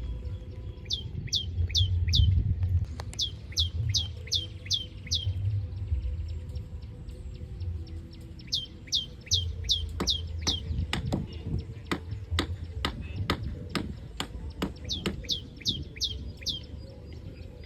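Bird calling in repeated runs of four to six sharp, steeply falling whistled notes, about three notes a second. A series of sharp clicks comes in the second half, over a low intermittent rumble.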